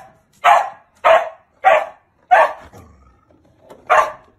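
A dog barking: five barks about two-thirds of a second apart, with a longer pause before the last one.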